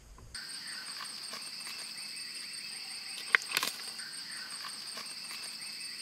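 Steady chorus of crickets and other night insects, a continuous high trilling that starts abruptly a moment in. A single sharp click and a short rustle come a little past the middle.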